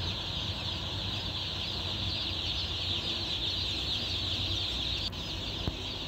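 A large flock of day-old chicks peeping together in a dense, unbroken chorus of high chirps, over a low steady rumble.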